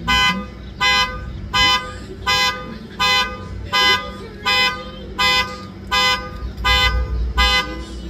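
Ford Mustang's car alarm honking its horn in short, evenly spaced blasts, about four every three seconds.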